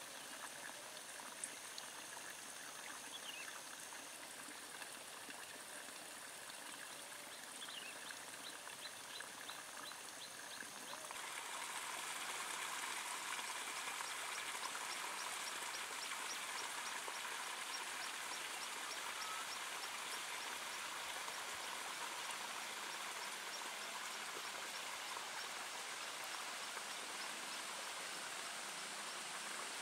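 Water babbling and trickling steadily, as in a small stream or paddy irrigation channel, getting louder and brighter about eleven seconds in. Runs of fast, high ticks come and go over it.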